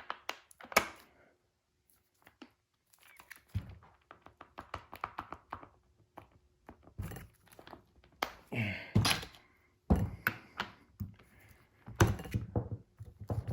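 Handling of metal impact sockets and a wrench: scattered knocks and clicks as sockets are pushed onto and pulled off the drive, with a run of quick clicks about four seconds in.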